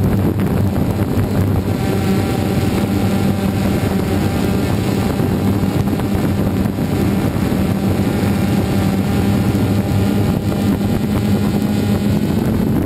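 DJI Phantom 2 quadcopter's electric motors and propellers buzzing steadily in flight, recorded close up by the camera carried on the drone, with wind rushing over the microphone.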